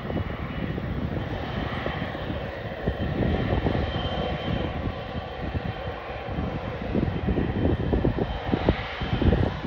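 Jet engines of a Boeing 777-200LR airliner, its two GE90 turbofans, running as the aircraft rolls along the runway after landing. A steady rushing noise with a faint high whine.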